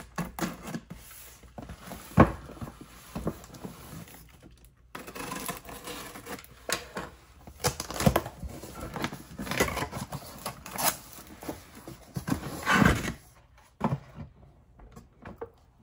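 Cardboard shipping box being handled and rummaged through by hand, an irregular rustling with scattered knocks, the loudest about two seconds in and again near the end.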